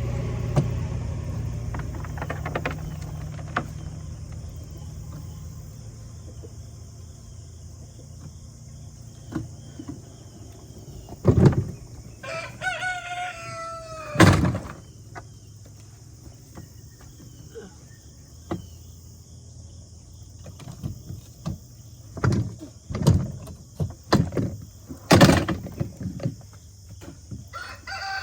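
A rooster crowing once about twelve seconds in, a drawn-out call on a held note, with another crow starting at the very end. Scattered sharp knocks and thumps, the loudest sounds, come between, and a low rumble fades away over the first several seconds.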